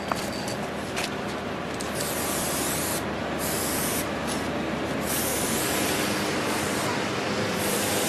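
Aerosol spray-paint can spraying in bursts, the hiss stopping and starting several times, beginning about two seconds in.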